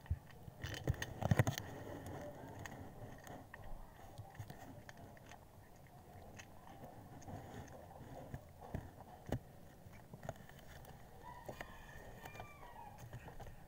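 Calico cat crunching and chewing grilled-corn-flavoured chips in irregular crunches, loudest in a quick cluster about a second in.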